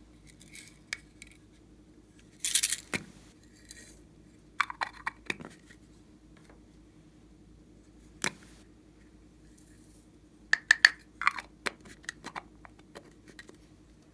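Small handling sounds of slime-making materials: scattered sharp clicks, taps and brief crinkles, with a louder crinkling burst about two and a half seconds in and a quick cluster of clicks near the end.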